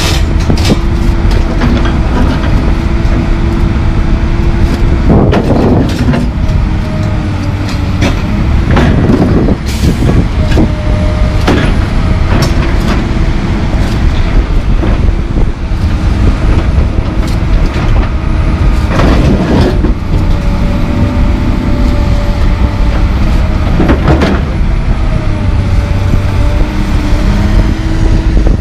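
Komatsu PC220LC hydraulic excavator running under load, its diesel engine and hydraulics giving a steady low rumble with whining tones that shift in pitch. About five loud scraping knocks come through it as the bucket digs into the broken concrete and dirt.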